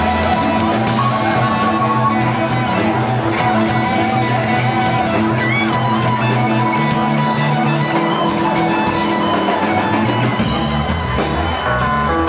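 Live jazz and hip-hop fusion band playing an instrumental passage on electric guitar, keyboard and drum kit. The deepest bass drops away for most of it and comes back near the end.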